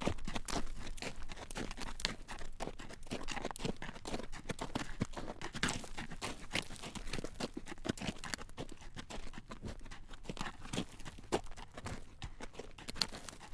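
Horse's hooves clip-clopping at a walk on a road, a steady run of hard clacks, with the crunch and rattle of the carriage it draws.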